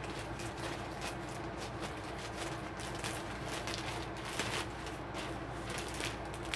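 Parcel packaging being handled and opened, rustling and crackling in many short irregular crinkles, over a steady low hum.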